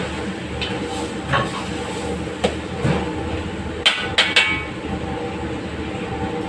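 Metal ladle stirring chicken in a steel wok, scraping and knocking against the pan, with sharp clanks about once a second and three quick ones around four seconds in. A steady roar runs underneath.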